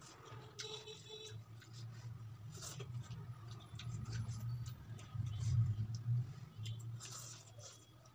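Quiet eating sounds of instant noodles: small wet mouth clicks and chewing, with a fork ticking against a plastic bowl, over a steady low hum.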